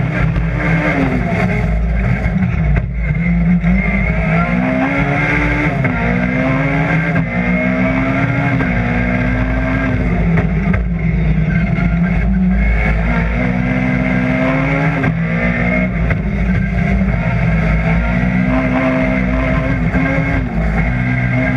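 Rally car engine heard from inside the stripped, roll-caged cabin, driven hard: the engine note climbs under acceleration and drops back several times as the driver shifts and lifts.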